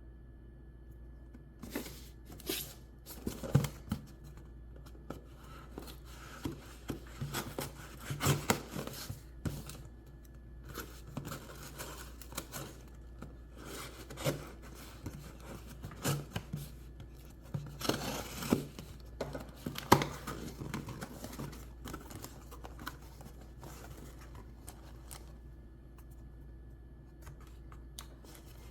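Knife box and packaging being opened and handled at close range: irregular tearing, crinkling and scraping with scattered sharp clicks and knocks, which die away over the last few seconds.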